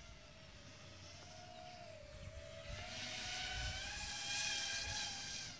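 Racing quadcopter's brushless motors (Racerstar 2205 2300KV) spinning DAL 5040 tri-blade props: a whine that wavers in pitch with the throttle. It grows louder about halfway through and drops away sharply near the end.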